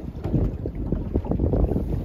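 Wind buffeting the microphone aboard a small fishing boat at sea: an uneven, gusty low rumble, with the sea heard faintly beneath it.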